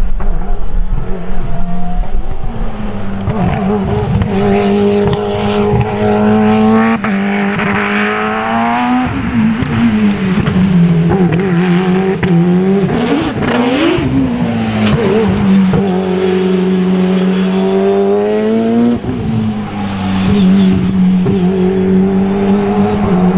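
Sports-prototype race car engine at hard throttle. The note climbs slowly in pitch for several seconds and then drops sharply, a few times over, with quick up-and-down revs around the middle.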